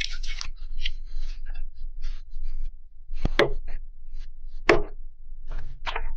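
A run of light, irregular taps and knocks, with three harder strikes about three, four and a half and six seconds in.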